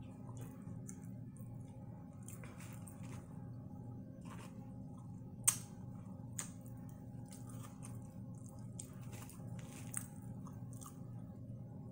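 Close-up chewing of Flamin' Hot Cheeto–breaded fried shrimp: soft wet mouth sounds with scattered small crunchy clicks, one sharper click about five and a half seconds in, over a steady low hum.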